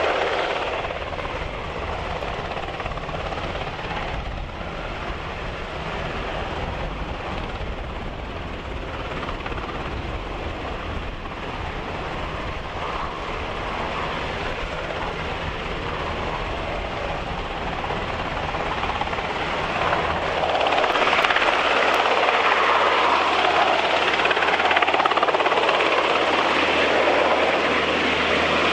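UH-60J rescue helicopter hovering low, its main rotor and twin turboshaft engines running steadily; the sound grows louder about two-thirds of the way through.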